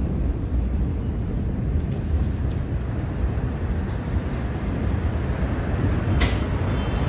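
Low, steady rumbling noise heavy in the bass, picked up by a phone microphone in the aftermath of a large explosion, as the smoke cloud billows up. A short sharp click cuts through about six seconds in, with fainter ones about two and four seconds in.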